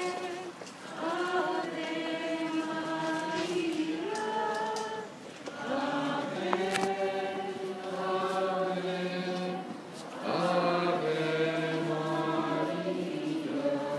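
A group of voices singing a slow hymn, long held notes in phrases a few seconds long with short breaths between them; lower voices come in about six seconds in.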